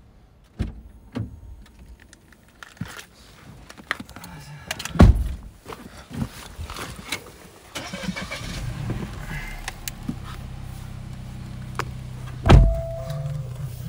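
Heavy thumps of car doors being shut, the loudest about five seconds in and another near the end. About eight seconds in, the car's engine starts and settles into a steady idle hum.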